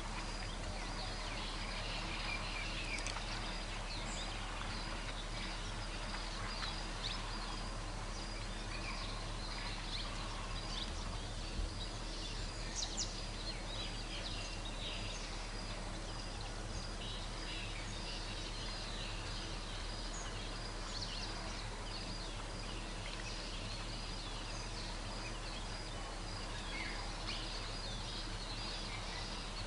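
Outdoor forest ambience: many short bird calls and chirps scattered throughout over a steady background hiss, with a constant low hum underneath.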